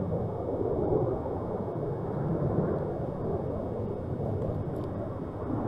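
F-22 Raptor's twin Pratt & Whitney F119 turbofan engines giving a steady, deep rumble as the jet flies past.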